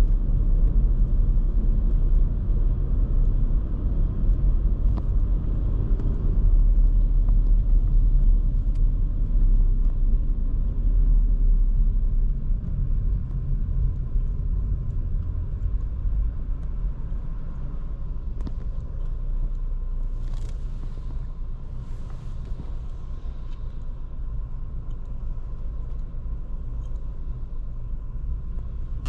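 Škoda Kamiq 1.0 TSI driving: a steady low rumble from its three-cylinder turbo petrol engine and the tyres on the road, growing quieter through the second half.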